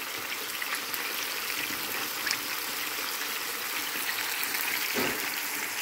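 Meat pieces and chopped onion sizzling steadily in hot oil in a frying pan.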